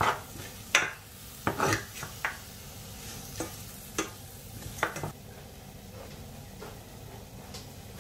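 Spatula scraping and stirring a thick mashed potato filling in a stainless steel frying pan, over a soft steady sizzle from the hot pan. The strokes come every half second to second for about five seconds, then thin out.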